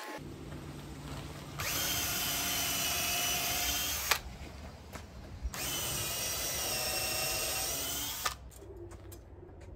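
DeWalt cordless drill running in two steady whining runs of about two and a half seconds each, driving screws into the wooden enclosure frame; each run ends with a sharp click.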